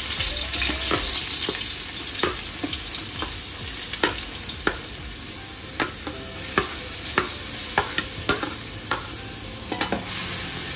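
Ginger-garlic and green chilli paste sizzling in hot ghee in an aluminium pot, a steady frying hiss. A metal slotted spoon scrapes and knocks against the plate and pot, giving sharp clicks about every half second, and near the end it stirs the paste in the pot.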